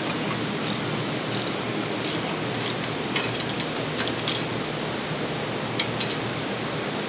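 Hand tools clicking and ticking on metal mounting hardware as bolts are fitted and tightened on a UTV storage rack bracket. The clicks come irregularly, with two sharper ones close together near the end, over a steady background hiss.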